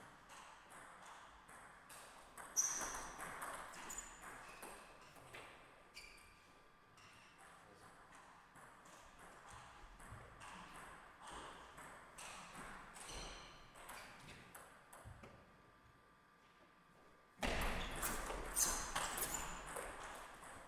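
Table tennis ball knocking back and forth off paddles and the table in a rally, some hits with a short high ping. A quieter stretch follows, then a louder, denser run of knocks starts sharply near the end.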